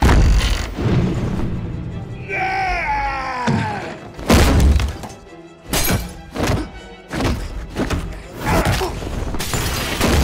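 Action-film fight soundtrack: a dramatic score under a series of sharp punch and kick impacts, with glass and tableware shattering.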